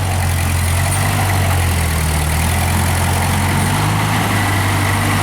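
Old tractor's engine idling, its pitch sagging briefly about two seconds in and then recovering.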